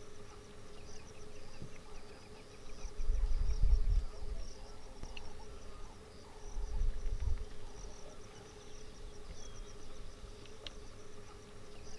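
Insects chirping in rapid repeating pulses over a steady hum, with two short low rumbles a few seconds apart.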